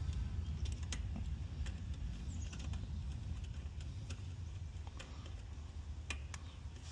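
Scattered small metallic clicks and ticks as valve cores are put back into an air conditioner's refrigerant service valves, over a steady low rumble.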